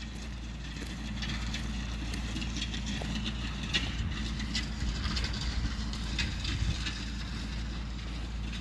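Tractor engine running steadily while its trailing disc implement cuts through ditch soil, with frequent sharp clicks and clatters of stones striking the discs.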